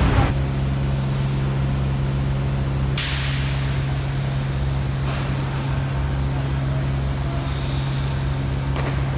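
Steady mechanical drone of construction machinery running in a subway station excavation, with a constant low hum and a brief hiss about three seconds in.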